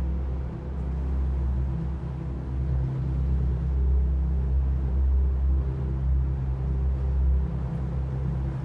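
Low, steady rumbling drone with sustained deep tones layered in it, a dark ambient soundtrack pad that swells slightly about four seconds in.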